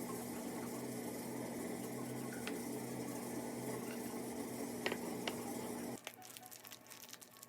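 A steady mechanical hum with a few light clicks and taps. About six seconds in it cuts off abruptly to a much quieter background with scattered small clicks.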